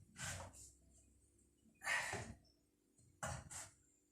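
A person breathing out heavily three times, faint, about a second and a half apart.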